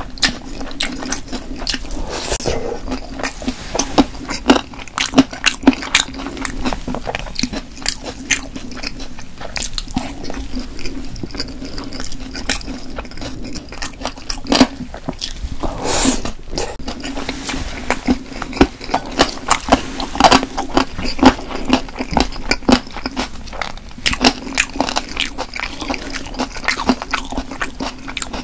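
Close-miked chewing of crunchy stir-fried pork cartilage: a dense, irregular run of sharp crunches and bites with wet mouth sounds.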